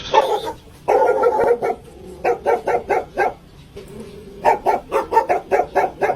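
A dog barking in quick runs of short barks, three bursts with brief pauses between them, the last run the longest.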